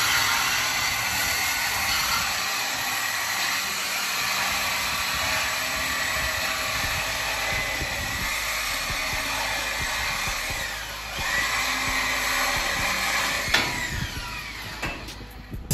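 Cordless power tool cutting through a steel exhaust pipe to remove the mufflers: a steady high-pitched whine that sags briefly about eleven seconds in, then winds down near the end after a sharp click.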